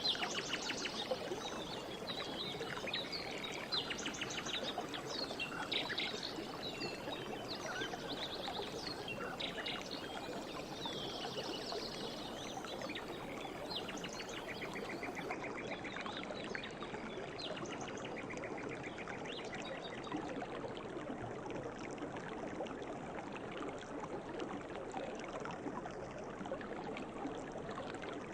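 Forest stream running steadily, with several birds calling and trilling over it, the bird calls thinning out in the second half.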